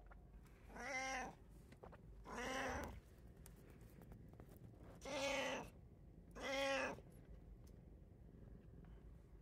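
Domestic cat meowing four times, in two pairs, each meow a short call well under a second long that rises and falls slightly in pitch.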